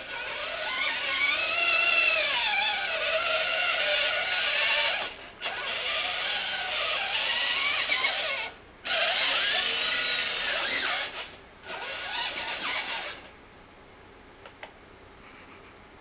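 Electric drive motors of a homemade ride-on robot built from an infant seat, whining as it drives and turns, the pitch rising and falling with speed. It runs in three stretches with brief stops about 5 and 8.5 seconds in, then falls silent about 13 seconds in.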